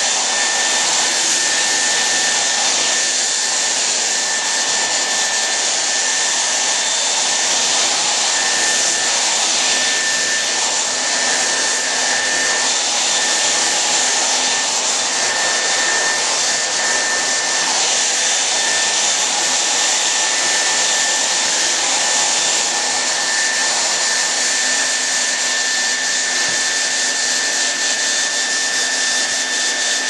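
Hair dryer running steadily: an even rush of blowing air with a thin, steady high whine from its motor.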